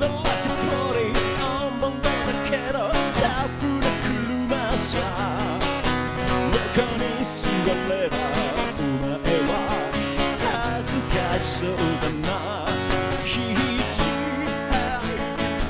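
Rock song: a man singing in Japanese over guitar, with a steady beat.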